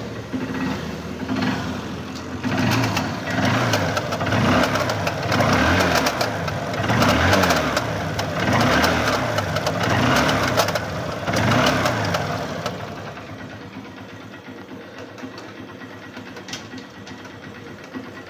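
Motorcycle engine running in gear, revved up and down several times, with a clattering rattle and sharp ticks from the chain drive: a broken metal strip inside the chain cover is touching the chain. About thirteen seconds in the revs drop back and the engine runs more quietly, still with scattered ticks.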